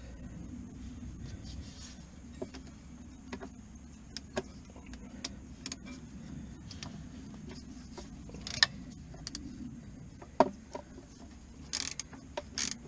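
Hand tools and metal parts clicking and clanking while a tractor's lift arm and seal housing are taken apart, with a few sharper metal knocks in the second half, over a steady low hum.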